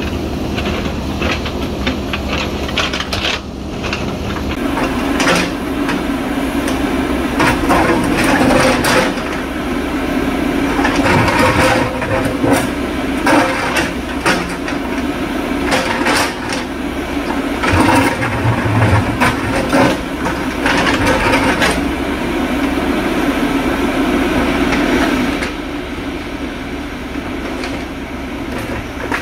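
JCB 3DX backhoe loader's diesel engine running under load as its bucket digs and scrapes through loose rock, with many irregular knocks and clatters of stone. The rock noise thins out and the sound drops a little near the end.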